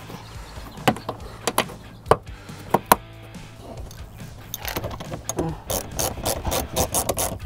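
Plastic push clips snapping into a fender liner: a few sharp separate clicks. Then about halfway through, a hand ratchet clicking rapidly, about five clicks a second, as it runs in a fender liner screw.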